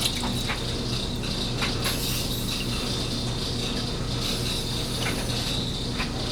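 Carbon-steel paring knife edge stroked across a King 1000-grit water stone in stropping strokes, a few short scraping strokes at uneven intervals. Under them runs a steady background hum and hiss.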